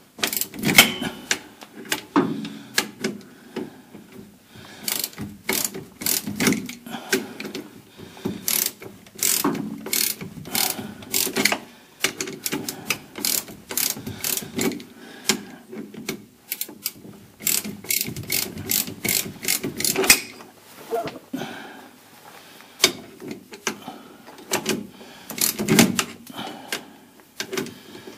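A socket ratchet clicking in irregular runs as a nut on a rear shock absorber mount is worked loose, with the odd sharper clack of the tool.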